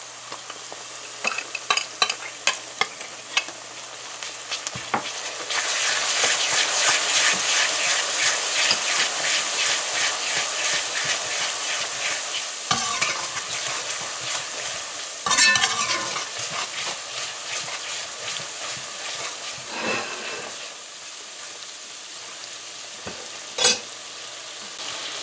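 Onions frying in hot oil, stirred with a spoon with light scraping clicks. About five seconds in, the curry paste goes into the oil and a loud sizzle starts, then fades gradually while it is stirred, with a few knocks of the spoon against the pot.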